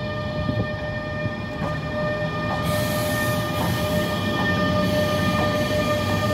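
EP20 electric locomotive hauling a passenger train past at close range, with a steady whine of several pitches. Wheels click over the rail joints about once a second, and a rush of hiss and wheel noise comes in about two and a half seconds in as the locomotive draws level.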